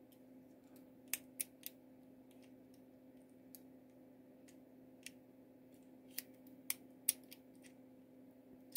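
Small sharp metal clicks from a key being turned back and forth in a cutaway lock as its internal parts move: three quick clicks about a second in, then a few more scattered clicks later.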